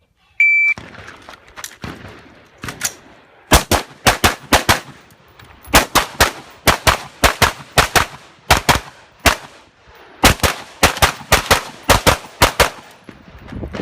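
A shot timer beeps once about half a second in. A few seconds later an AR-15 rifle fires over twenty rapid shots in quick strings of three to five, with short pauses between them as it moves between targets.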